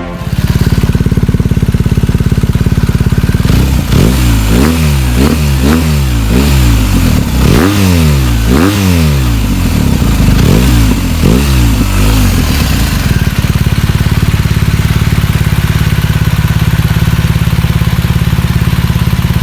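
BMW R1250R boxer-twin engine running through an Akrapovic exhaust: it idles steadily, is revved in a quick series of throttle blips for about ten seconds, each rising and falling back, then settles back to idle.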